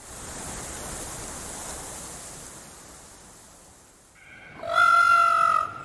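A breathy hiss that fades away over about four seconds, then a single steady, high-pitched animal call lasting about a second near the end.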